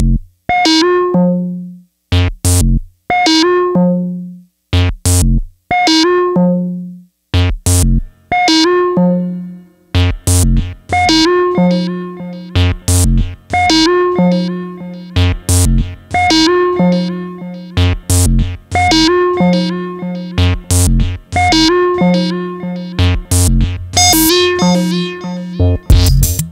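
Octave Cat analog synthesizer playing a repeating 16-step sequence: a short phrase of notes ending in a held low note, about every two and a half seconds. It starts dry with silence between phrases. From about ten seconds in it runs through a Roland RE-301 tape echo, whose repeats fill the gaps into a continuous, denser sound.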